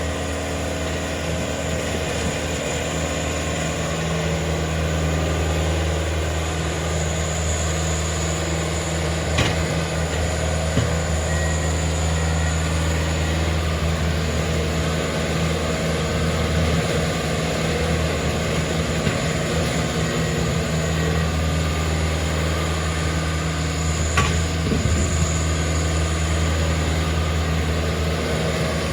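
Diesel engines of railroad track-maintenance machines running steadily while they handle crossties, with two sharp metal knocks, one about ten seconds in and one later on.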